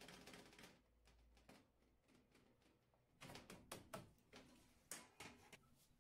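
Faint quick taps of a fork pricking a sheet of puff pastry in a round pan, in two spells: one at the start and a longer one from about three seconds in.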